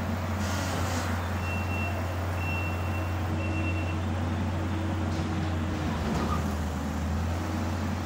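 Skid steer with a front-mounted brush mower running steadily, a low engine drone. Three short backup-alarm beeps sound in the first half as the machine reverses.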